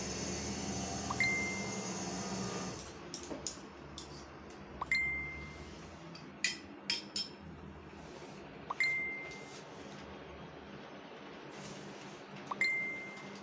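A clear chime-like ding rings out four times, about every four seconds, with light clicks and clinks of metal spoons on ceramic plates in between. A steady hum stops about three seconds in.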